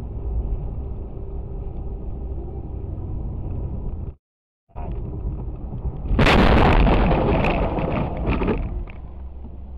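Steady road and engine noise inside a moving car's cabin, then about six seconds in a sudden loud crash as something strikes the windshield and shatters it, the glass crunching for a couple of seconds before the steady noise returns.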